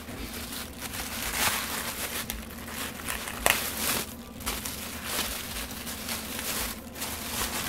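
Plastic packaging bags crinkling and rustling in irregular bursts as parts are handled in a cardboard box, with a single sharp knock about halfway through.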